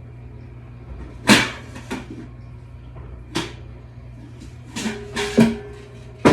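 Several sharp knocks and clacks of hard kitchen items being handled, some in quick clusters, over a steady low hum.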